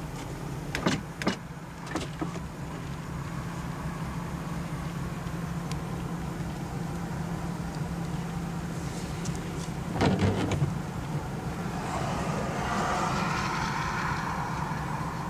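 Steady low engine rumble with an even pulse, heard from inside a car, with a few sharp knocks early and a louder thump about ten seconds in. From about twelve seconds a hiss opens up over it, as when a car window is lowered in the rain.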